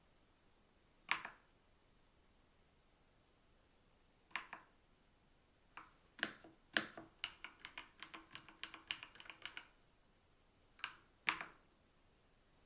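Keys pressed on a Kzzi K75 gasket-mounted mechanical keyboard. There are a few single clacks, then a quick run of about a dozen keystrokes in the middle, then two more clacks near the end.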